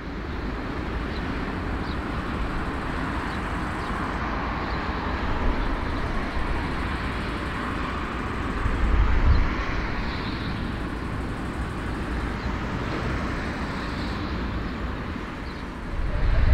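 Four-engine Airbus A340-300 jet engines running at taxi power: a steady rush over a low rumble, swelling briefly about nine seconds in.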